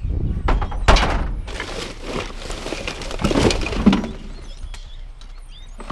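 Plastic trash bags rustling and junk clunking against the metal walls of a dumpster as a gloved hand digs through it, with a sharp knock about a second in and another near four seconds.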